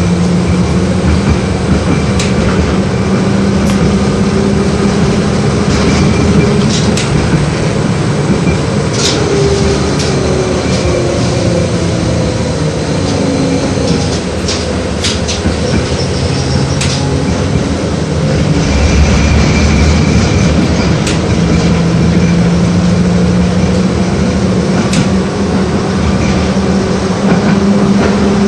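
LVS-86K tram running along its track, heard from inside the car. There is a steady low motor hum whose pitch glides down and back up partway through as the speed changes, with wheels clicking over the rails now and then.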